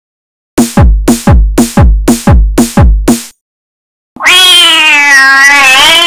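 A drum-machine beat of about ten quick electronic kick-drum hits, roughly three a second, stopping a little after three seconds in. Near the end comes one long cat meow of about two seconds, its pitch wavering.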